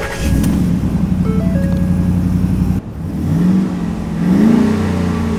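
First-generation Ford SVT Raptor's 6.2-litre V8 catching just after the key is turned and running at a fast cold-start idle. It is then revved twice, the pitch rising and falling each time.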